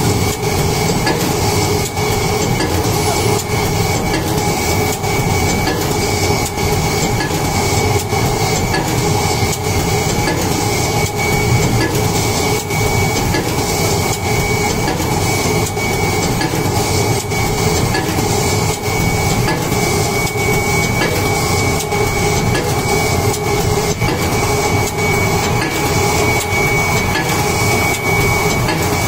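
Paper tulip cup forming machine running continuously, a steady mechanical clatter with a regular knock about twice a second as the turret indexes and presses cups, over a thin steady high whine.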